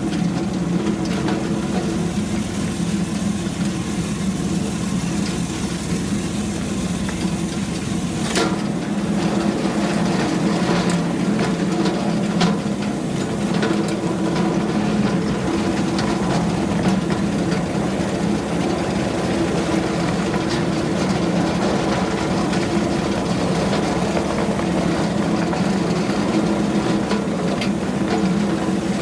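Engine of a miniature-railway locomotive running steadily at an even pitch, with a few sharp clicks or knocks over it, one clear one about eight seconds in.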